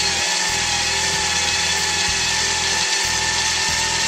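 Electric drill running steadily with an 11 mm socket, winding in the bolt of a rivet nut insertion tool. This is the stage that compresses the rivnut to form a captive nut in the sheet metal.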